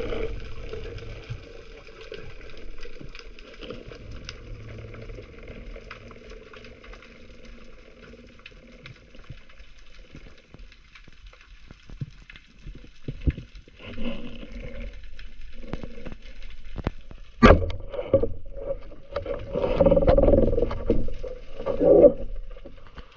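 Underwater sound: a steady faint drone, then from about halfway scattered clicks and knocks, with one sharp crack about three-quarters of the way in and louder knocking and rustling near the end.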